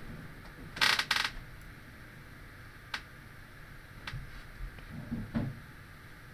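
Computer keyboard and mouse clicks: a quick double clatter about a second in, then a few faint single clicks.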